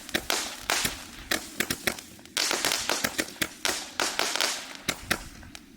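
168-shot mini gatling gun firework cake going off: a rapid run of sharp pops, several a second, with hissing crackle between them, thinning out near the end.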